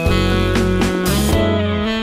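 Background music: an instrumental track with plucked guitar over a bass line.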